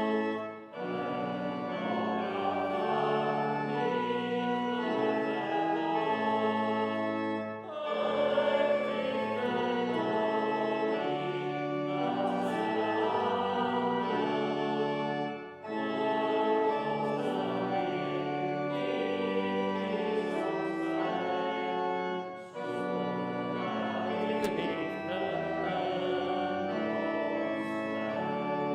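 Church organ accompanying congregational singing of a hymn, four sung phrases with short breaks between them as the lines of the stanza are sung.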